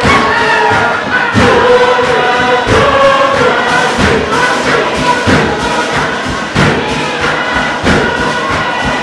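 Tuvaluan fatele: a large group singing together in chorus over a steady pounding beat struck about every second and a bit.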